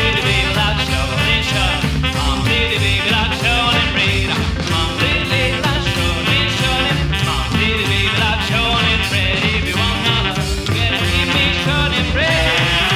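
Rockabilly band music: drums and double bass keep a steady beat, with bass notes stepping along under a wavering lead line.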